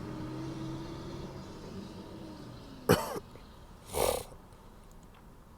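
A man coughing twice, briefly: a short sharp cough about three seconds in, then a breathier cough or throat clearing a second later. A low steady hum fades away early on.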